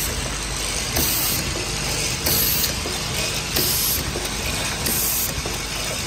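Automatic syrup bottle filling line running. Its mechanical clatter is steady, and a brief hiss comes back about every second and a quarter with each machine cycle.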